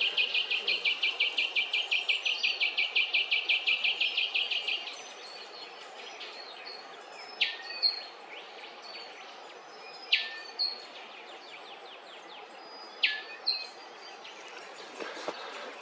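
Wild birds calling: a loud, fast, even trill of high notes stops about five seconds in. After it come three sharp calls that sweep steeply downward, each followed by short high notes.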